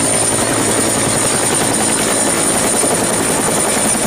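Two-bladed Bell Huey-type helicopter hovering: a steady, rapid beat of the main rotor blades under a steady high whine.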